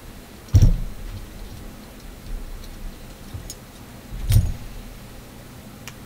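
Two dull knocks about four seconds apart, with a few light clicks between them, from wires and small tools being handled on a carpeted workbench.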